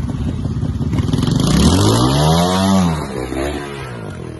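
Trials motorcycle engine firing at low revs, then revving up hard and dropping back as the bike climbs a steep bank, with a shorter second blip of the throttle just after.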